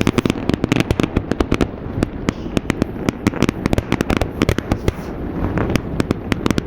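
Fireworks display: a dense, irregular run of sharp bangs and crackles, several a second, with no let-up.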